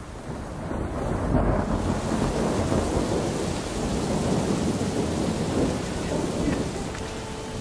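Heavy-weather storm noise aboard a small sailboat: wind and sea rushing and rumbling, with wind buffeting the microphone. It swells about a second in and eases a little near the end.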